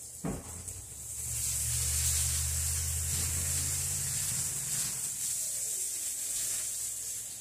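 Food frying in a hot pan on the stove: a steady sizzle that comes up about a second in and keeps on, with a low hum beneath it for the first few seconds.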